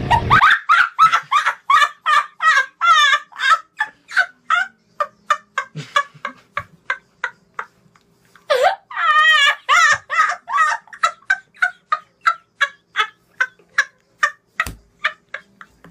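A boy laughing hysterically in rapid, high-pitched cackling bursts, several a second. Two long fits, each trailing off, the second starting about halfway through with a higher squeal.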